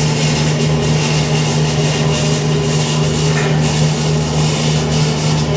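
An engine runs steadily: a low, even hum with a noisy hiss over it and no change in speed.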